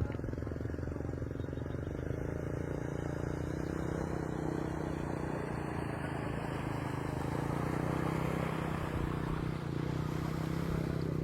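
An engine running steadily at a constant pitch, with a rushing noise over it.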